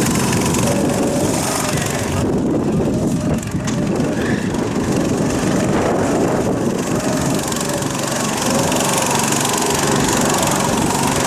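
Go-kart's small single-cylinder engine running as the kart is driven through a cone slalom, its sound dipping briefly about two to three seconds in.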